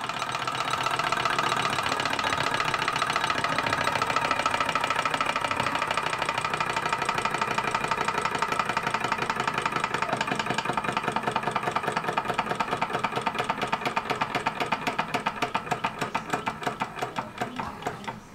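Vintage Bing Orion tin-plate hot-air Stirling engine running with a fast, even mechanical beat. With its burner taken out it is cooling and running down: the beat slowly fades and slows, the separate strokes growing more distinct near the end as the flywheel coasts toward a stop.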